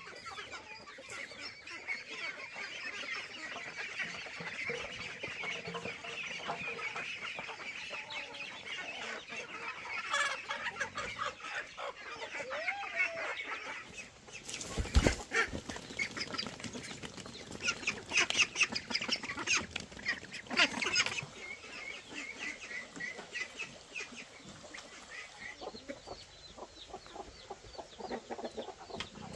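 A flock of chickens clucking continuously, many overlapping calls. There is a single thump about halfway through, and louder bursts of calls follow a few seconds later.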